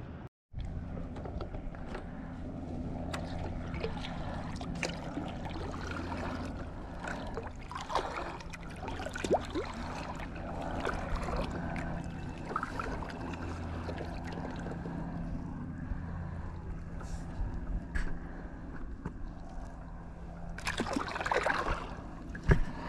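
Paddling an Epic V9 surfski: paddle blades dip with water trickling and sloshing off them, over a steady low hum. There is a louder splashy stretch near the end.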